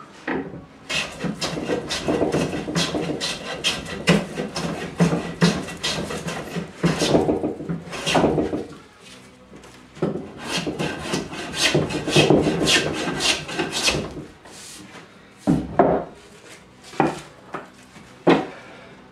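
Hand tool scraping across spalted taraire wood in quick back-and-forth strokes, a rasping scrape several times a second. It eases off briefly about nine seconds in, then ends with a few separate strokes near the end.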